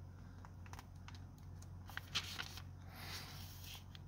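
Faint, scattered light clicks and handling sounds, the clearest about two seconds in, over a low steady hum.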